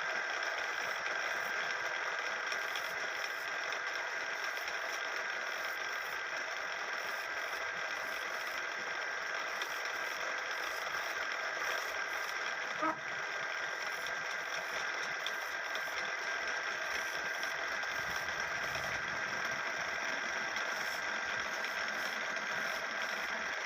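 Wood-turning lathe running steadily, a constant machine hum. One short knock comes about halfway through.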